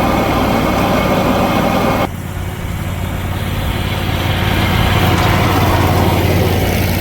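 Lawn mower engine running steadily with a low hum. About two seconds in, a loud rushing noise over it cuts off suddenly while the engine carries on.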